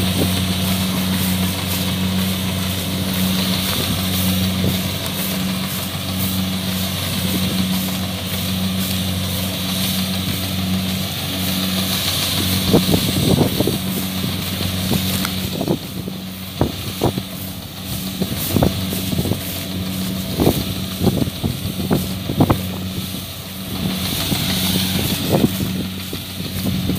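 Kubota DC-70 combine harvester's diesel engine running steadily with a constant hum and hiss. About halfway through, irregular knocks and clatter join it.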